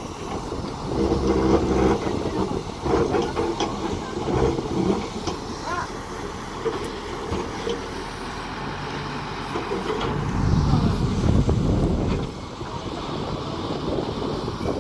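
Tata Hitachi Zaxis 220 LC crawler excavator's diesel engine running, with louder spells about a second in, around four seconds, and longest from about ten to twelve seconds.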